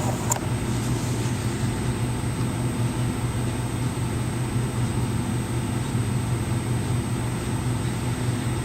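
A steady low hum with a faint, thin high whine over it, even throughout with no separate events: background machine or room noise.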